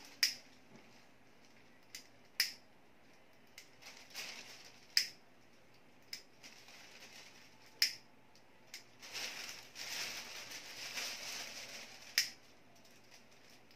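Thin Japanese-paper kite being handled: five sharp clicks a couple of seconds apart, with the paper rustling and crinkling for a few seconds in the second half.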